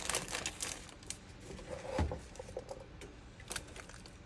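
A spoon scraping and tapping as it presses a sticky fruit cake mixture into a wax-paper-lined box: scattered soft clicks and scrapes, busier in the first second.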